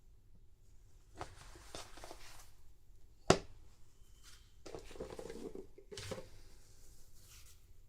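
Hands handling a doll and its small plastic pieces: soft rustling and scraping, with one sharp click about three seconds in.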